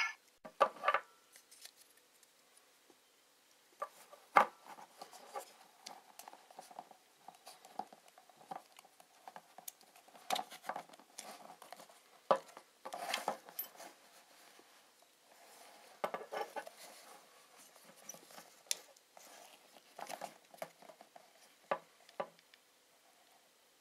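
Plastic toy transformation-belt buckle being handled and fitted onto a belt strap: quiet, irregular clicks, taps and rubbing of plastic against the strap and fingers.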